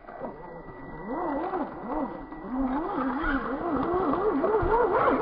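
Electric motor and gear whine of an Axial Wraith scale RC rock crawler, the pitch rising and falling over and over as the throttle is worked. It starts about a second in and grows louder.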